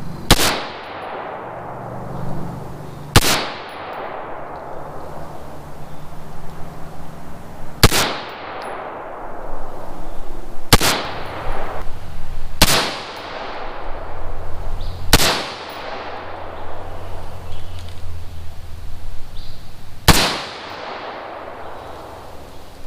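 Seven single shots from an AR-15 rifle, fired one at a time at uneven gaps of about two to five seconds, each sharp crack followed by a long echoing tail.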